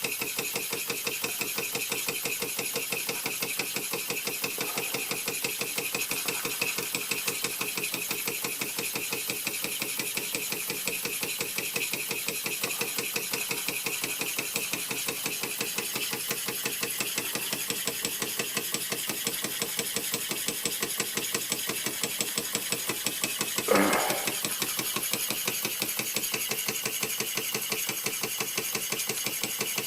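1926 Bing 10/12/2 toy steam engine running steadily under full steam and driving a small grinder, its exhaust chuffing in a fast, even beat. A brief louder sound cuts in once, about 24 seconds in.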